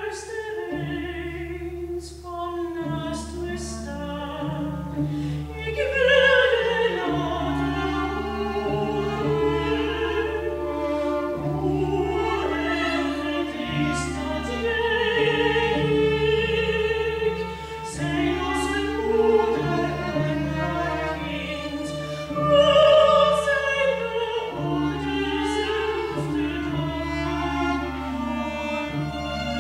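Operatic soprano singing with wide vibrato, accompanied by a small chamber ensemble of clarinet, violin, cello and double bass. The instruments play alone at first and the voice enters about six seconds in.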